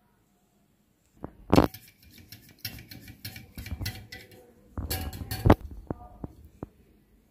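Wire whisk beating a runny egg-and-milk pudding mixture in a glass bowl, the wires clicking and clinking quickly against the glass. There are two louder knocks, one about a second and a half in and one about five and a half seconds in, then a few single clicks.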